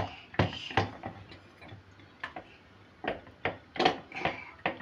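A spoon knocking and clinking against the sides of a plastic jug as a child stirs batter: short, irregular taps, about two a second.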